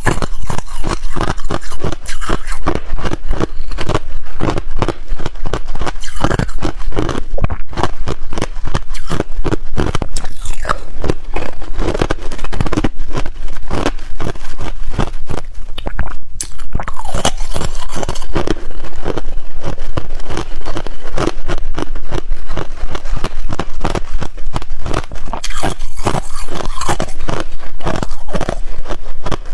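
Thin clear ice shell being bitten and chewed close to a clip-on microphone: a dense, continuous run of sharp cracks and crunches as the ice snaps and is ground between the teeth.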